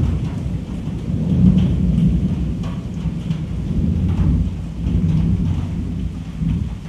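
Low rolling rumble of thunder, swelling and fading several times, over steady rain.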